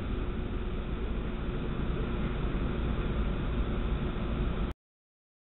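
Steady low rumble and hiss of room noise on a camcorder microphone, cutting off abruptly near the end into silence.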